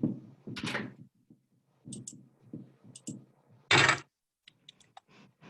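Scattered light clicks, with one louder short knock about four seconds in and a quick run of small ticks near the end.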